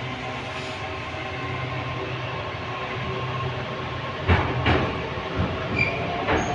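Interior of a moving 81-722.1 metro car: steady running noise with a whine of several level tones from the traction drive. Three sharp knocks come through, two close together about four and a half seconds in and one near the end.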